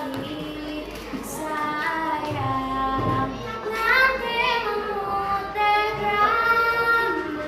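A schoolgirl singing a slow melody solo, holding long notes that glide up and down in pitch.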